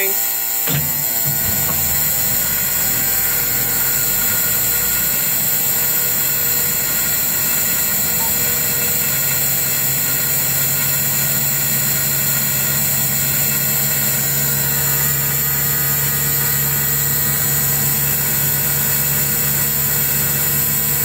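Caterpillar 3208 V8 diesel of a 1987 Ford L8000 fire engine starting about a second in and then running steadily at a raised idle, heard from inside the cab. A low-air-pressure warning buzzer sounds steadily over it: the air brake system is still building pressure.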